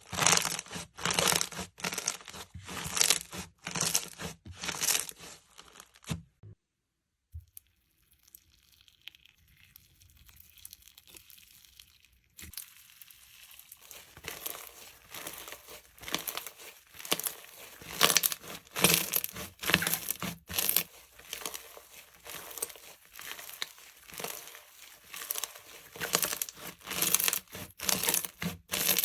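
Slime being squeezed, stretched and mixed by hand: a fast run of short sticky squishing sounds. They stop for a moment about six seconds in, stay faint for a few seconds, then start again loudly about twelve seconds in.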